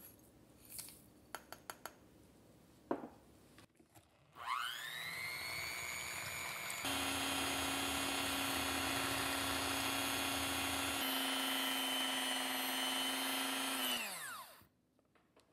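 Electric hand mixer whipping cream in a glass bowl. The motor starts about four seconds in with a rising whine, runs steadily, changes pitch twice, then winds down with a falling whine near the end.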